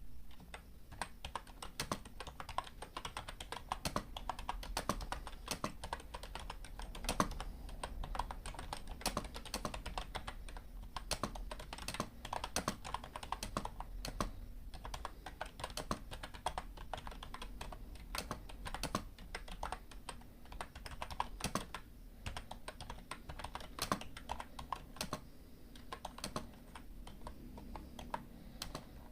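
Typing on a computer keyboard: a continuous, irregular run of key clicks with a few brief pauses.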